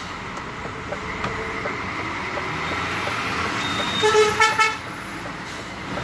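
Steady engine and road noise of a DAF CF 85.410 truck under way, heard inside the cab. About four seconds in, a vehicle horn gives a short double toot.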